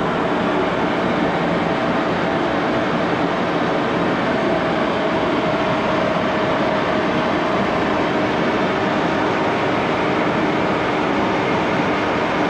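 A 1941 Axelson 14x30 gear-head engine lathe running steadily under power while turning a long bar of soft stock, which tends to tear rather than cut. The sound is an even mechanical rush with a few held tones.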